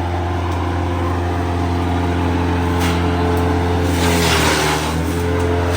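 An engine running steadily, its pitch dipping slightly about four seconds in as a rush of noise rises.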